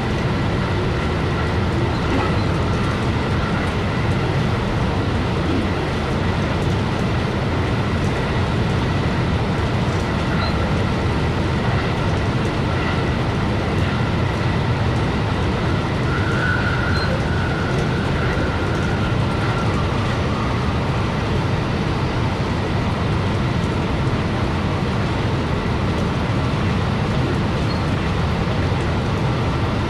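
JR West 223 series electric train running at about 120–130 km/h, heard from the driver's cab: a steady rumble of wheels on rail with a faint, steady high whine over it.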